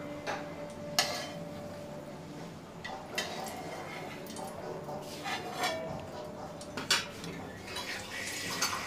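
Steel slotted spoon clinking and scraping against an iron kadai of hot frying oil: about six sharp metal clinks spread a second or two apart, the loudest about a second in and near seven seconds, a couple of them leaving a short ring, over a steady low hiss.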